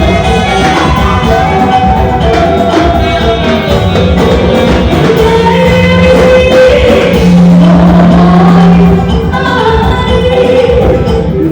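Band music with a steady beat and a melody line, with a low note held for a few seconds around the middle.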